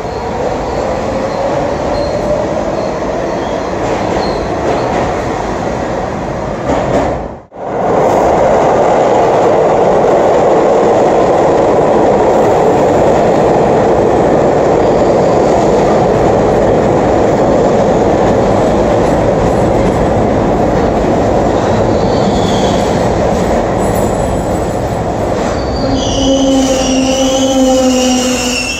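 New York City subway train running through an underground station, a loud steady rumble of steel wheels on rail. It breaks off briefly about seven seconds in. Near the end, high squealing tones rise over it as a train's brakes bring it to a stop.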